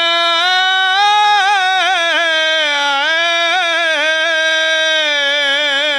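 A man's voice singing one long drawn-out note in a zakir's melodic majlis recitation. The pitch lifts slightly about half a second in, wavers in quick ornamental turns through the middle, then settles back to a steady held tone near the end.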